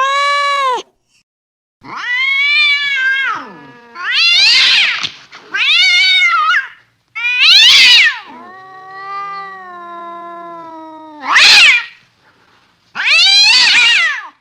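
Cat meowing over and over: about seven loud, drawn-out meows with short pauses between, each bending up and then down in pitch, and one longer, lower, quieter yowl in the middle.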